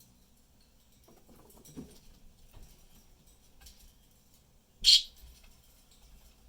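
A budgerigar gives one short, loud chirp about five seconds in; otherwise only faint soft taps.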